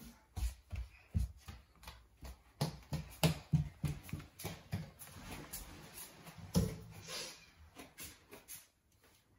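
A toddler's bare feet and hands thumping and patting on a wooden floor and wooden stairs, with a quick run of taps in the middle.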